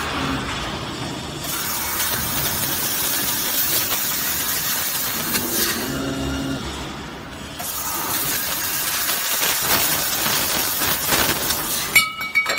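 Laser tube cutting machine cutting steel tube: a loud steady hiss from the cutting head, which drops away twice for about a second and a half while the rotary chuck turns the tube and a lower motor hum is heard. Sharp metallic clinks near the end.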